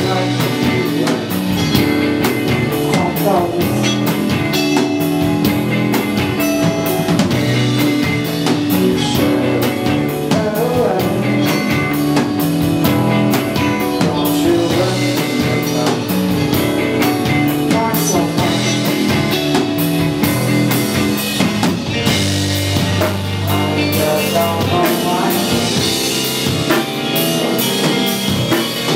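Rock band playing live: drum kit keeping a steady beat under electric guitar and bass.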